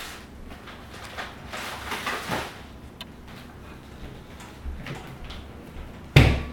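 Light clicks and scuffs of a corgi puppy moving about on a hardwood floor and nosing at a piece of apple, with one sharp, loud thump a little after six seconds in.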